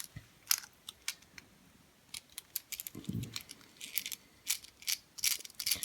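Small metal tools and keys being moved about and set down on a hard surface: a string of light, irregular clinks and clicks.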